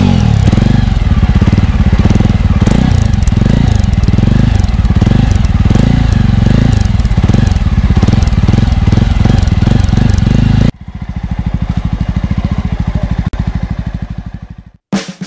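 New Jawa motorcycle's 293 cc single-cylinder engine running, its exhaust note a little shallow, with a regular beat. About ten seconds in the sound drops suddenly to a quieter running that fades and stops near the end.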